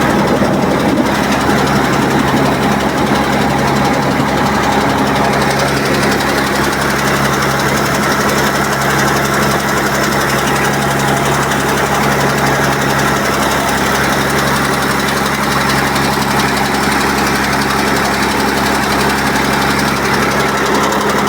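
Air compressor used for borewell cleaning, running steadily: a constant low hum with a hiss over it.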